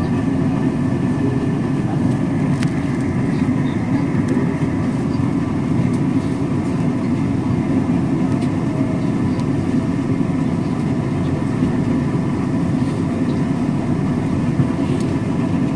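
Steady hum and rumble of an MTR South Island Line S-Train, with a few faint steady tones over it. The train is standing at a signal in the tunnel, so this is its equipment and ventilation noise, not the sound of running.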